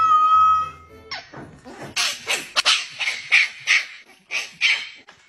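A cat's long meow, rising and then held, in the first second. It is followed by a puppy's rapid run of short, high yaps, about three or four a second.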